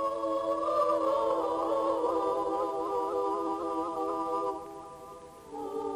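Soundtrack music: a wordless choir holding slow, sustained chords. The chord fades about four and a half seconds in, and a new chord comes in near the end.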